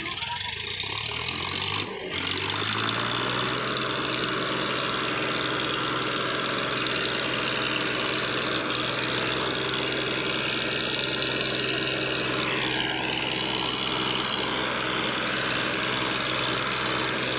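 Diesel tractor engines pulling hard under load in a tractor tug-of-war, the nearest a Farmtrac Champion. The revs climb over the first two seconds, dip briefly, then hold a steady, loud drone.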